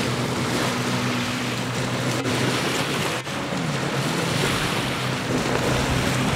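Jet ski engine running with a steady low hum, its pitch rising and falling a little past halfway, under heavy wind noise on the microphone and water sounds.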